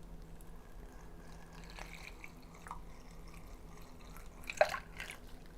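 Faint water trickling and dripping as water is poured through a funnel into a latex party balloon, with a brief louder noise about four and a half seconds in.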